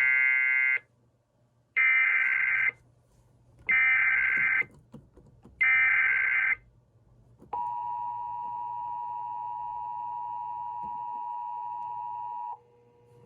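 Emergency Alert System activation for an Amber Alert: four one-second bursts of warbling digital SAME header data about two seconds apart, then the steady EAS two-tone attention signal held for about five seconds, quieter than the data bursts, cutting off sharply.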